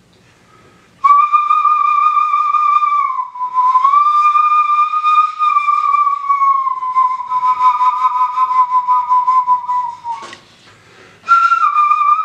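Bone flute made from a deer leg bone, in the style of a Māori kōauau, played with breathy held notes. A short note is followed by a long one that sinks slowly in pitch over several seconds. There is a brief break for breath near the end before a new, slightly higher note starts.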